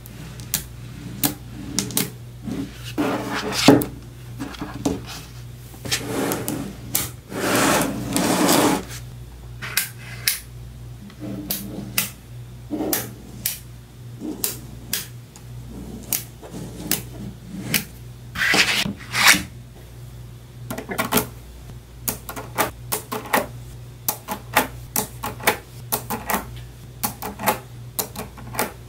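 Small neodymium magnetic balls clicking and snapping together as they are handled and pressed into blocks: many sharp, irregular clicks, with a few longer clattering stretches, the longest about a quarter of the way in.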